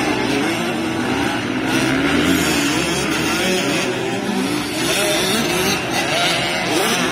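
Several motocross bikes' engines revving at once as the riders race, their pitches rising and falling and overlapping.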